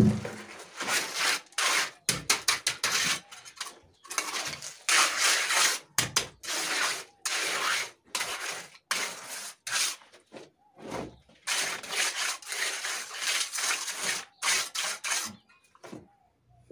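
Steel mason's trowel scraping and pushing wet gravel concrete across the slab in a run of scraping strokes, each half a second to a second and a half long with short pauses, with a thump at the start.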